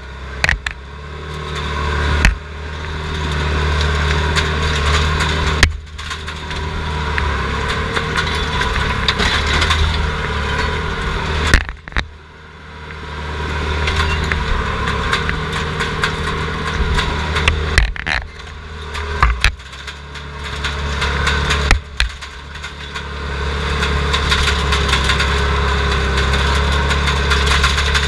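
Heavy equipment's diesel engine running hard, heard from inside its caged cab, the revs climbing three times as it works. Sharp knocks and clanks are heard now and then.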